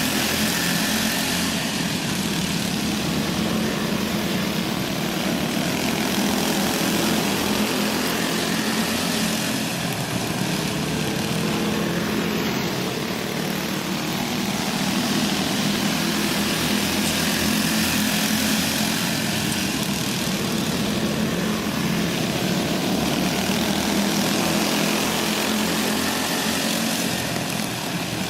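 Several small go-kart engines running together during a dirt-track race, a steady buzzing drone that swells and fades gently every several seconds.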